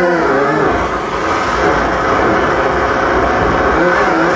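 Harsh noise music from a contact-miked sheet of glass played with the mouth and voice pressed against it: loud, dense, continuous noise with a heavy low rumble and a few faint pitched tones.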